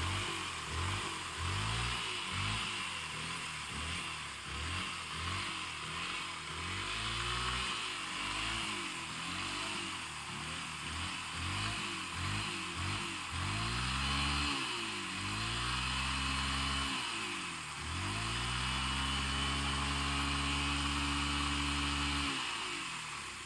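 Motorcycle engine being revved in quick repeated blips, the pitch rising and falling each time, then held at steady revs for a few seconds before dropping off near the end.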